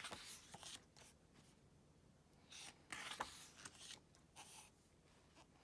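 Faint rustling and swishing of thick glossy paper as a photobook's pages are handled and turned, in a few soft strokes, the loudest about three seconds in.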